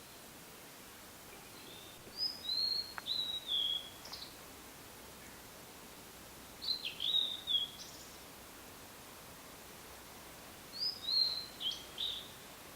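Blue-and-white flycatcher singing: three phrases of clear, high whistled notes a few seconds apart, each phrase lasting about one to two seconds.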